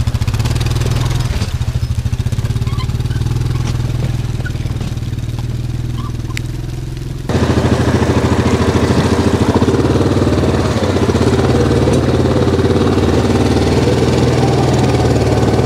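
Yamaha Grizzly 700 ATV's single-cylinder engine running at low, steady speed while the quad crawls through mud towing a loaded cart. The sound changes abruptly and gets louder about seven seconds in.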